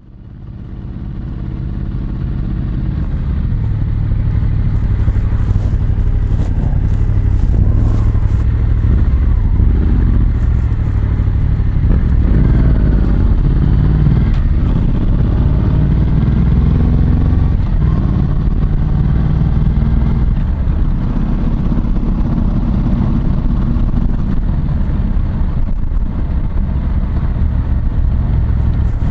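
Yamaha MT-07's parallel-twin engine running through an SP Tadao Power Box full exhaust while riding at low speed, its pitch rising and falling as it accelerates and eases off. The sound fades in at the start.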